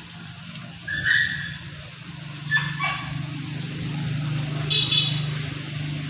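Dogs giving a few short, high yips and barks: one about a second in, a couple around two and a half seconds, and another near five seconds. Under them runs a steady low hum that grows louder from about two seconds in.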